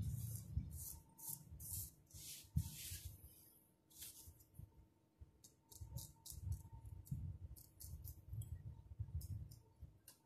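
Straight razor scraping the hair at the hairline around the temple and ear in a run of short strokes. The first few strokes are longer. From about halfway on they are short and crisp.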